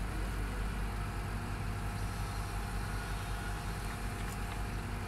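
Diesel engine of a tracked excavator carrying an auger drill, idling steadily with a low, even hum.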